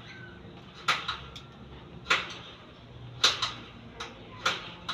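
Sharp taps of a small hammer against the aluminium screen door's frame and latch fittings, about one a second, several followed closely by a lighter second tap.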